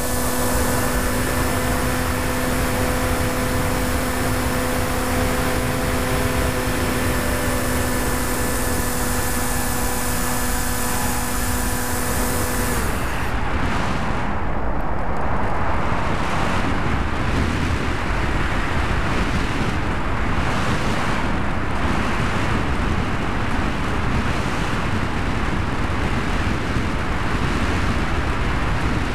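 Wind rushing over a GoPro riding on a Bixler 2 RC foam plane in flight, with the steady whine of its electric pusher motor. About 13 seconds in the motor whine cuts off, leaving only the wind rush, which swells and fades.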